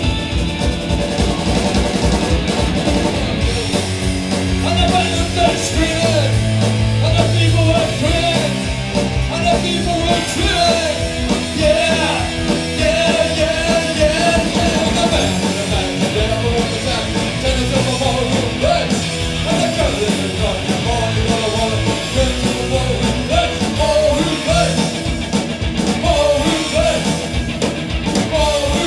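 Live rock band playing loud: electric guitars and a drum kit, with singing coming in about four seconds in.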